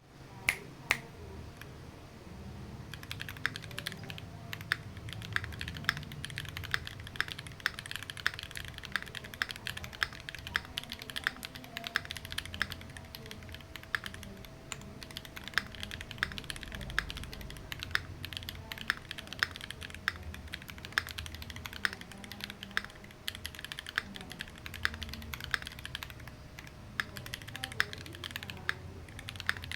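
Typing on a Keychron Q2 aluminium-case mechanical keyboard with Akko Cream Black V3 Pro linear switches. Two single keystrokes come first, then steady, continuous typing from about three seconds in.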